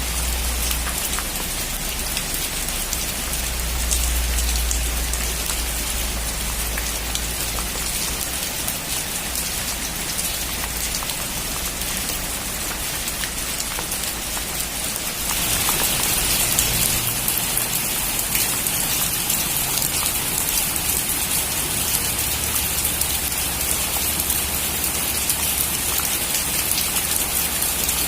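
Heavy rain falling on a metal roof, a steady dense patter that steps up louder about halfway through.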